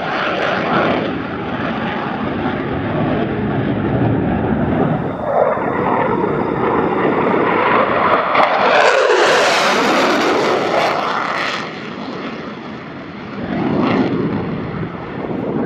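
USAF Thunderbirds F-16 jet flying past, its engine noise building to a loud pass with a sweeping whoosh about nine to ten seconds in, dying away, then swelling again near the end.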